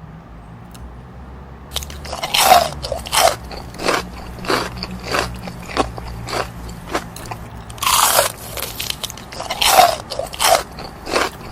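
Close-up chewing of crispy-coated chicken nuggets: mouth-close crunching that starts about two seconds in and repeats a little more than once a second, loudest about eight seconds in.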